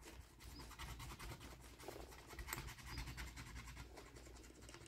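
Faint, rapid scratching as a metal-tipped scratch tool rubs the silver coating off a scratch-off sticker on paper.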